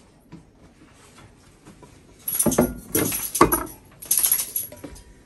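Glass baking dishes clattering and rattling as they are handled and set down on a wooden pull-out board, in a few loud bursts over about two seconds starting about halfway in.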